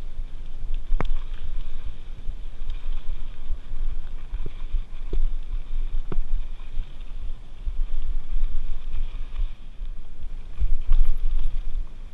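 Mountain bike riding over a dirt singletrack: a steady low rumble of the tyres on the ground and air buffeting, with scattered sharp clicks and knocks as the bike rattles over bumps.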